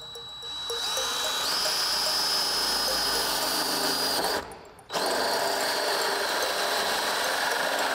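DeWalt cordless right-angle drill spinning a 3/4-inch hole saw into car-body sheet metal, with a steady high whine that steps up in pitch soon after it starts. It runs for about four seconds, stops for half a second, then cuts again.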